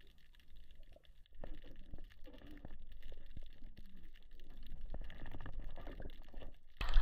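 Faint, muffled underwater sound: scattered small clicks and knocks over a low water rumble, starting about a second in.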